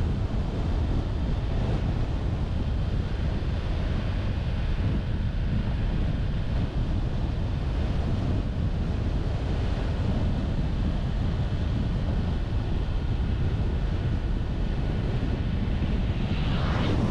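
Steady low rumble of wind buffeting the camera microphone and road noise from a car driving along a mountain road. A brief rise in hiss comes near the end.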